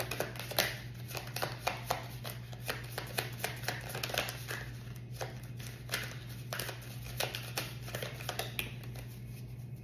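A deck of tarot-size cards being shuffled by hand, cards passed from one hand to the other in a quick, irregular run of soft slaps and flicks, several a second, over a low steady hum.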